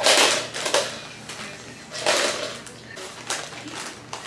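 A disposable diaper and wipes crinkling and rustling as they are handled during a diaper change, in loud bursts at the start and about two seconds in.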